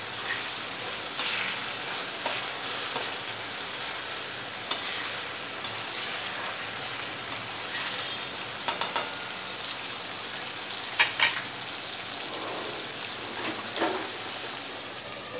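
Chopped tomatoes sizzling in hot oil in a metal kadai, stirred with a slotted spatula that clicks and scrapes against the pan now and then, with a quick run of taps about two-thirds of the way through.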